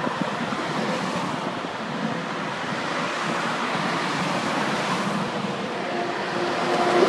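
Road traffic: cars driving past with steady tyre and engine noise. Near the end a truck approaches and its engine hum grows louder.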